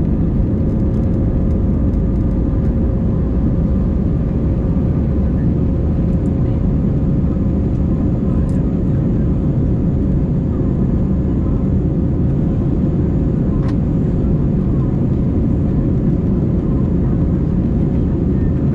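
Airbus A320's IAE V2500 jet engines and airflow heard from inside the passenger cabin: a steady, loud low roar with a constant hum tone running through it.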